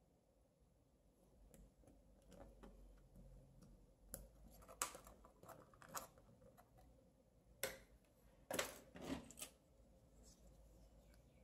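Faint clicks and scrapes of hands handling a piezo transducer's wire leads and fitting them into a solderless breadboard, a handful of small sharp clicks coming mostly from the middle of the stretch on.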